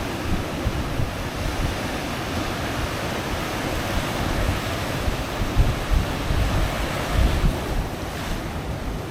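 Pacific Ocean surf washing steadily onto the beach, with wind buffeting the microphone in irregular low gusts.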